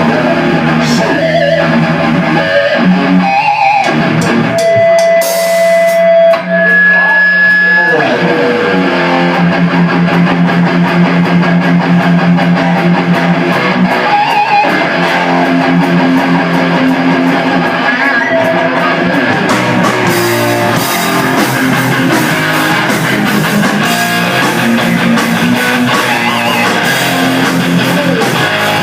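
A rock band of two guitars, bass guitar and drum kit playing loudly, without vocals. A few long held guitar notes ring about five to eight seconds in, and the drumming gets busier with more cymbal from about twenty seconds in.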